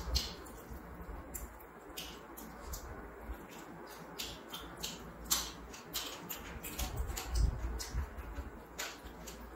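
Eating sounds: fingers mixing rice and curry on a steel plate, with chewing, giving many small sharp clicks at an irregular pace.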